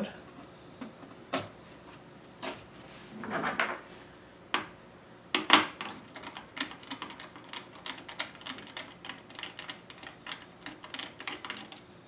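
Small screwdriver working screws out of a laptop's motherboard and frame: scattered sharp clicks and taps, one louder click about halfway, then a run of quick light clicks through the second half, with brief rustling of handled parts.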